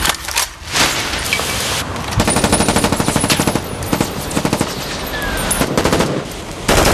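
Automatic rifle fire: rapid bursts of shots, densest and most sustained a couple of seconds in, with scattered shots and bursts after that.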